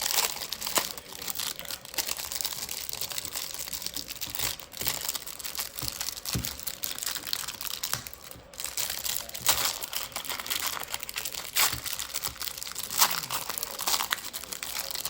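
Packaging of a baseball-card hanger box being torn open: continuous crinkling with scattered sharp clicks.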